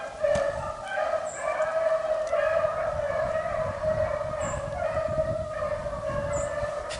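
A pack of beagles baying on a rabbit's trail, their long overlapping howls blending into a steady chorus.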